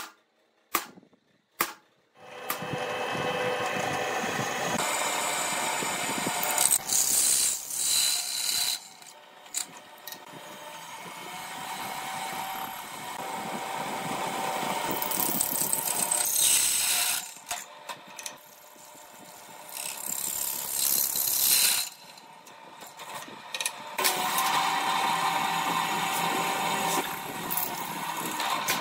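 Three sharp taps of a hammer on a centre punch at the start, then a bench drill press running and drilling through steel flat bar. The cutting gets louder and harsher in several stretches as the bit bites into the metal.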